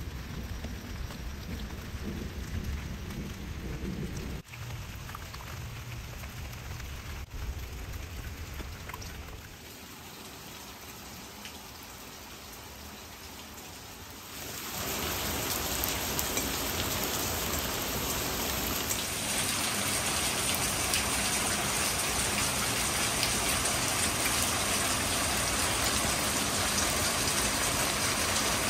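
Light, steady rain falling on wet pavement and plants, an even hiss that gets louder about halfway through.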